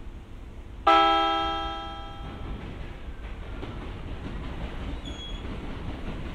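A single horn blast from the JR East FV-E991 series test train, sharp at the start and fading out over about a second and a half. It is followed by the train's low, steady running rumble as it gets under way.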